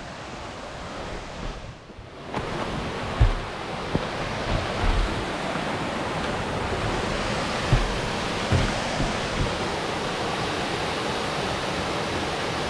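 Gibbs Falls, a mountain-brook waterfall, rushing steadily. It swells louder about two seconds in and then holds, with a few low thumps near the middle.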